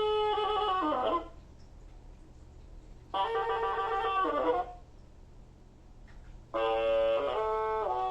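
Fisher-Price Code 'N Learn Kinderbot toy robot playing electronic sound effects from its speaker: three short horn-like jingles about two seconds apart. Each lasts about a second and a half, holds a few stepped notes and ends in a downward slide.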